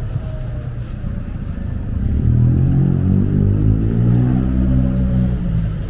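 A motor vehicle engine accelerating close by on a street. Its low rumble swells from about two seconds in and climbs steadily in pitch as it revs up.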